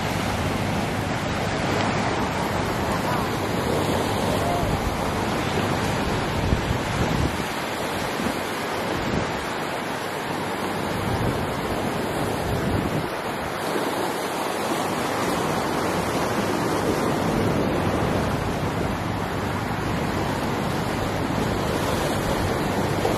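Ocean surf washing onto the beach, with wind on the microphone: a steady, even rush of noise.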